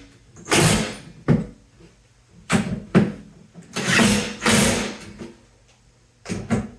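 Bunk-bed staircase assembly: a hand tool tightening bolts into the frame, making about eight short scraping strokes at uneven intervals.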